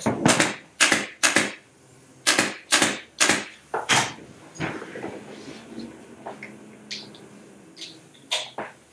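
Pneumatic upholstery stapler firing about seven staples in quick succession through fabric on a chair seat, each a sharp snap, over the first four seconds. After that come quieter knocks as the stapler is set down and the fabric and seat are handled.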